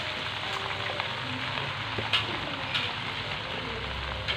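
Water spinach (kangkung) sizzling in a hot wok of oil as handfuls of freshly washed, wet leaves are dropped in: a steady frying hiss, with a couple of short sharp clicks about two and three seconds in.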